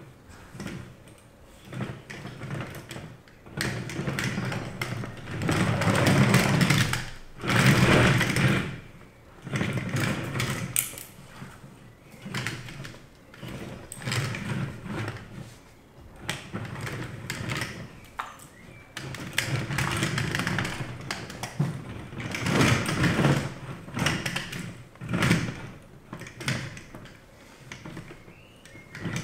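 3D-printed mecanum wheels on a steel-frame base rolling over a wooden parquet floor under a standing rider. The rumble swells and fades in repeated surges of one to three seconds as the base is pulled along.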